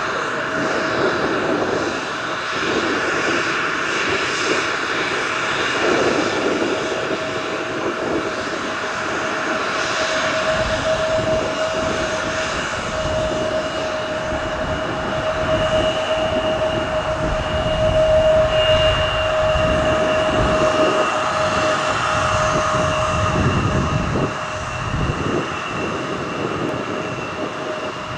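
Embraer E170 regional jet taxiing, its twin turbofan engines running with a steady whine over a continuous rush of jet noise.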